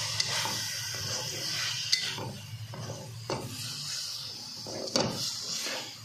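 Spatula scraping and knocking against a wok as chicken and vegetables are stir-fried, over a light sizzle. A few sharp knocks stand out, the loudest near the five-second mark.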